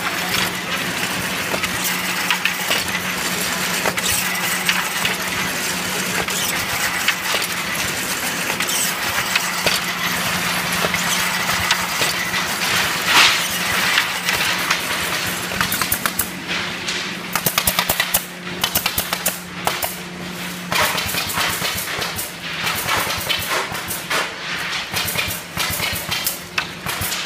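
Woodworking machinery running: a steady motor hum under a dense hiss. From about halfway through, quick runs of sharp clattering knocks come in.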